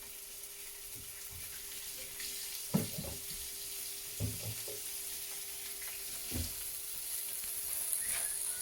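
Bacon pieces sizzling in sesame oil in a hot frying pan, a steady high hiss, with a few knocks of a utensil against the pan as they are stirred.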